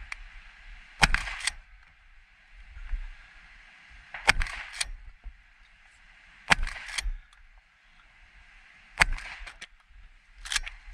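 Five shotgun shots fired close to the microphone, spaced about two to three seconds apart, each followed by a shorter clack or two.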